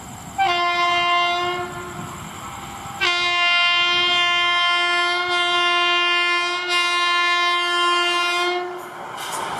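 WAP-7 electric locomotive horn sounding as the train approaches at speed: one short blast, then a long held blast of about six seconds. After the horn cuts off near the end, the rumble of the oncoming train rises.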